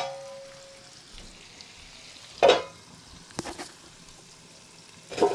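Food sizzling in a frying pan, with a few loud clanks of metal cookware over it. The first clank rings on briefly, the second comes about two and a half seconds in, and the last near the end.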